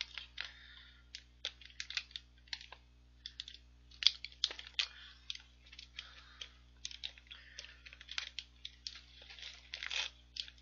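Plastic snack bag crinkling in irregular, sharp crackles as it is twisted shut and a rubber band is wound around its neck.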